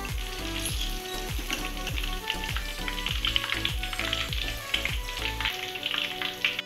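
Tofu pieces frying in hot oil in a wok, with a steady sizzle, over background music with repeated falling bass notes.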